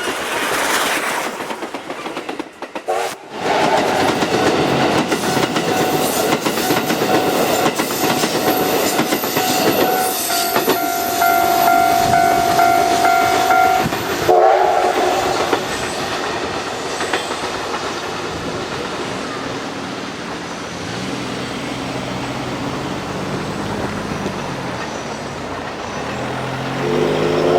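Steam train, the C57 steam locomotive and its coaches, passing close by with a loud clatter of wheels on the rails. A steady high tone rings over it for about ten seconds. After that the clatter eases to a quieter rumble as the train moves away, and another engine sound rises near the end.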